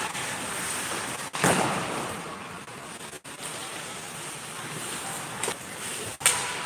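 Ice rink sound during hockey play: a steady noisy hiss of skates on ice and the hall. A loud thump comes about a second and a half in, and a sharp crack near the end, of the kind made by puck, sticks and boards.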